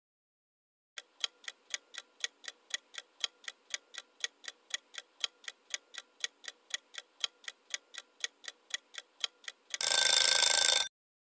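Countdown timer sound effect: a clock ticking evenly at about four ticks a second, starting about a second in. About ten seconds in, a loud alarm buzzer rings for about a second to mark that the answer time is up.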